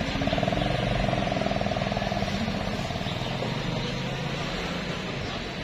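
Motorcycle engine running close by with a fast, even pulse, fading over a few seconds as it moves off.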